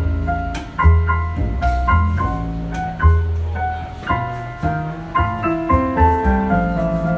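Jazz keyboard with a piano sound playing chords and melody notes over a bass, whose deep notes change about once a second. Instrumental playing, no voice.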